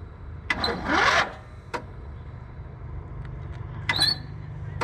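Small lawn tractor engine, run with its oil drained: a steady low mechanical drone that builds in the second half, with a few sharp clicks and a brief rising whine about a second in.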